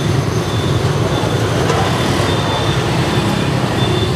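Steady street traffic rumble, a continuous low drone with no clear breaks.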